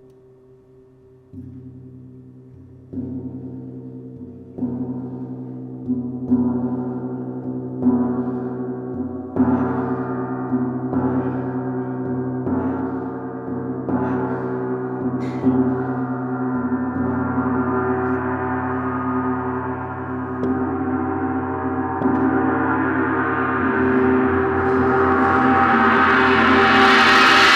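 Large planet-tuned gongs played in a steady series of strokes, about one every one and a half seconds, each a little louder than the last. The ringing overtones build up and merge into one sustained swell, which grows louder and brighter toward the end.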